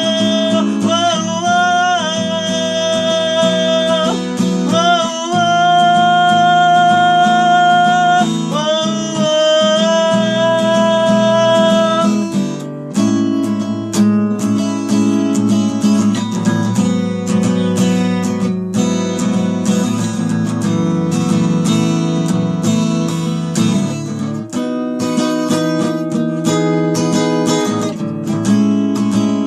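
Acoustic guitar strummed in a steady pattern. For about the first twelve seconds a wordless melody of long held notes with slides runs over it; after that the strumming carries on alone, with sharp strokes.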